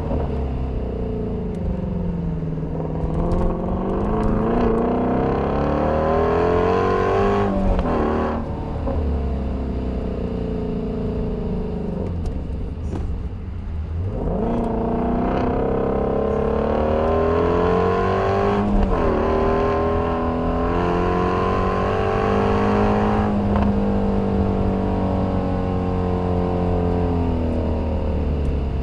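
A 2019 Shelby GT350's 5.2-litre flat-plane-crank V8 under hard acceleration. The revs climb and then drop sharply at each gear change of its manual gearbox, several times, over a steady low rumble of road and wind noise.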